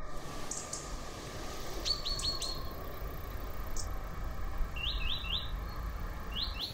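A small bird chirping in short runs of three or four quick high chirps, about two seconds in, again near five seconds, and once more at the end, over faint steady low background noise.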